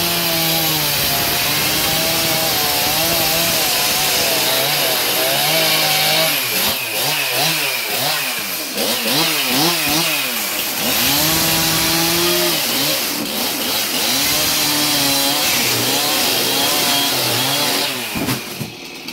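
Two-stroke Stihl chainsaw running at high revs and cutting into the air hockey table's particle board, the engine pitch sagging and recovering several times as the chain loads in the cut. It drops to a quieter idle near the end.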